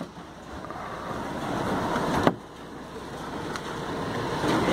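Steady outdoor rumble like vehicle engines, slowly growing louder, broken about two seconds in by a sharp click and a sudden drop in level.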